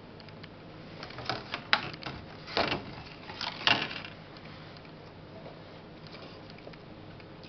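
A thin clear plastic container handled and set on a metal tray: a few light clicks and knocks, mostly in the first half, over soft handling noise.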